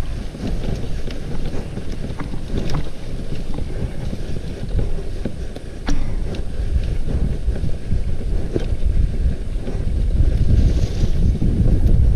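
Wind buffeting the microphone as an irregular low rumble, with scattered short knocks and clicks.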